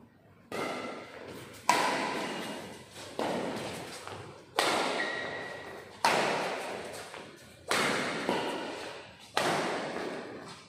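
Badminton rackets striking a shuttlecock in a doubles rally, about seven sharp hits roughly a second and a half apart. Each hit rings on in a long echo that fades before the next.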